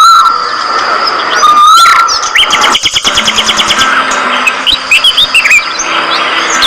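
A flock of budgerigars chirping and chattering in rapid trills and short rising and falling calls.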